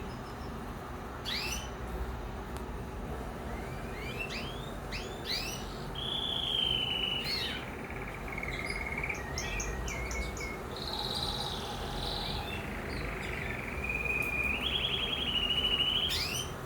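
Canary singing: quick rising chirps, then long rolling trills that step down and back up in pitch, loudest near the end.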